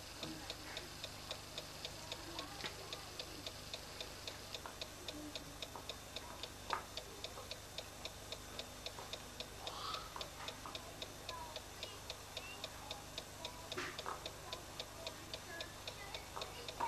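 Rapid, even mechanical ticking, about four ticks a second, like a small clock ticking in the room.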